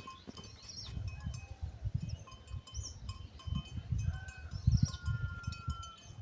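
Birds chirping and whistling, including one long, slightly falling whistle near the end, over uneven low rumble from wind gusting on the microphone.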